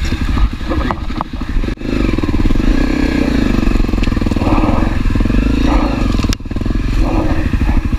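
Honda CRF250L's single-cylinder four-stroke engine running as the dirt bike rides across leaf-covered forest floor, close to the microphone, with two brief drops in the sound.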